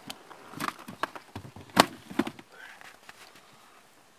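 A landing net holding a pike is hauled aboard an inflatable boat: a run of sharp knocks and thumps, the loudest a little under two seconds in, then it goes still.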